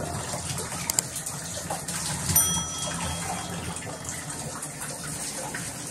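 Water spraying steadily from a handheld shower head. A short high-pitched squeak comes about two seconds in.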